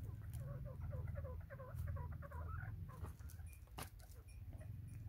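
White francolins (teetar) giving soft, rapid clucking calls, a quick run of short notes in the first half that thins out later. A steady low hum runs underneath, and there is one sharp click near the end.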